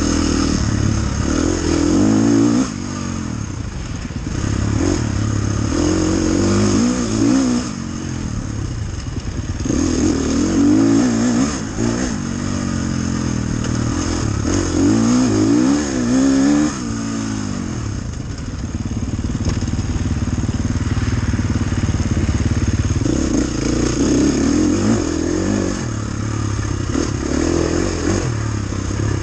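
Dirt bike engine ridden hard off-road, its pitch climbing in repeated surges as the throttle is opened and dropping back in between.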